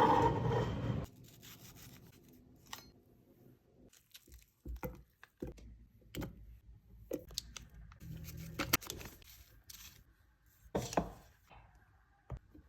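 Kitchen food-preparation handling sounds: a loud, dense rush in the first second, then scattered taps, knocks, rubbing and short scrapes with pauses between them.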